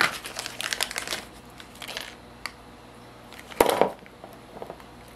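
A small plastic bag of lead-head tautog jigs being opened and handled: crinkling plastic and quick clicks of the jigs knocking together, with a louder rustle about three and a half seconds in.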